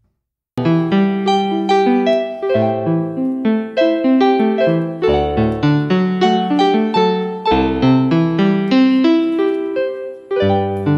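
Background piano music with a quick run of notes. It begins about half a second in, after a moment of silence, and breaks off briefly near the end.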